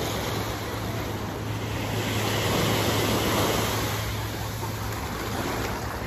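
Sea waves washing onto the beach, a steady rush that swells louder about halfway through as a wave breaks, then eases.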